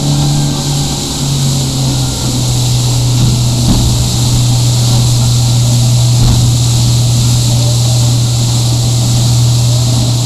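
Motorboat running steadily at speed: a loud, even engine drone that wavers for the first two seconds and then holds steady, over the constant rush of water churned up in the wake.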